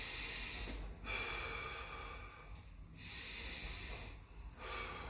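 A man breathing slowly and deeply, about four long breaths in and out, in through the nose and out through the mouth.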